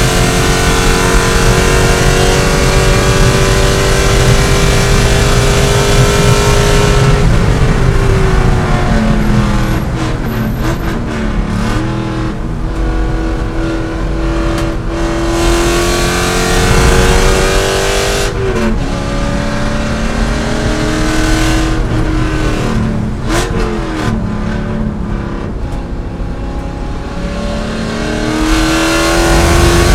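C5 Corvette's 5.7-litre V8 at racing speed: held at high revs and slowly climbing, then lifting off about seven seconds in with downshift blips through the braking zone, and pulling hard again near the end.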